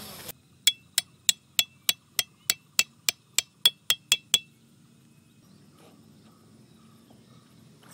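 Metal tent peg being hammered into the ground: about fourteen sharp, ringing metallic strikes at roughly three a second, stopping about four and a half seconds in.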